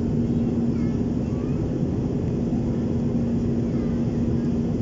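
Steady cabin noise of a jet airliner in flight: the even rush of engines and airflow heard from inside the cabin, with a steady low hum running through it.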